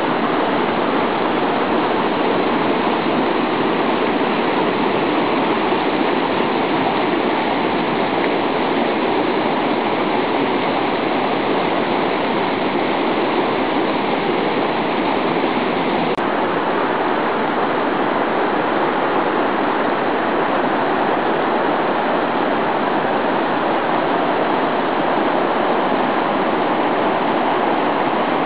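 Mikaeri Falls' water crashing down into its pool: a loud, steady rush of falling water.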